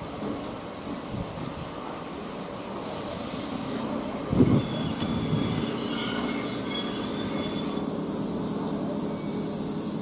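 Ex-Nankai 21001-series electric train rumbling over the track at low speed. About four and a half seconds in there is a sharp thump, then high steel wheel squeal rings for a few seconds before fading back to the rumble.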